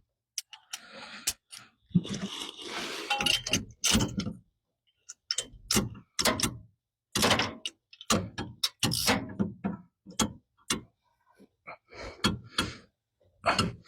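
Irregular knocks, clunks and scraping of hands and tools working on engine parts, in short separate bursts with brief pauses between them.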